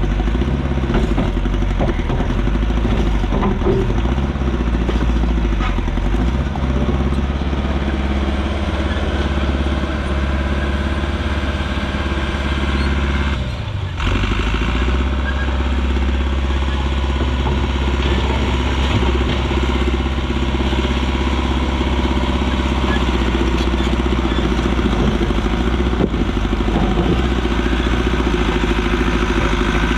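Allis-Chalmers 655 track loader's engine running steadily under work, with a brief drop about halfway through.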